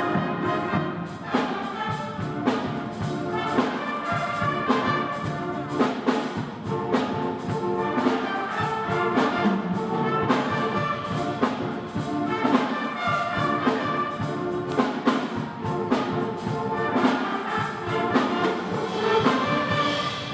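A student concert band playing, brass to the fore, with percussion hits keeping a steady beat.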